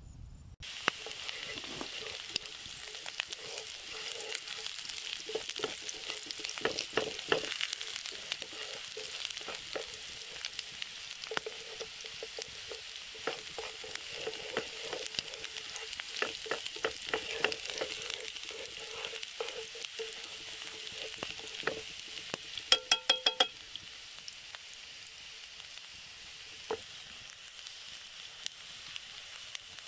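Chopped onions and green peppers sizzling in oil in a frying pan over a wood fire, with wooden sticks stirring and clicking against the pan. About three-quarters of the way through comes a quick run of sharp taps that ring briefly.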